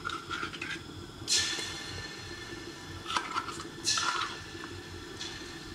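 A kitchen utensil scraping and clinking against cookware a handful of times while tomato paste is scooped into the pot, over a steady low background hum.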